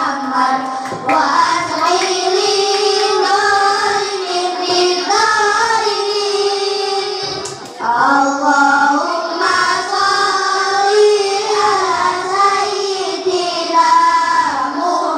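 A group of children singing together into microphones, in long held notes that bend up and down, with a short break about halfway through.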